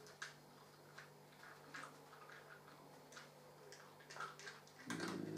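Quiet room with faint, irregular light clicks and ticks, about every half second to a second, as the sheets of a paper letter are handled, over a faint steady low hum. A brief low voice-like hum comes in near the end.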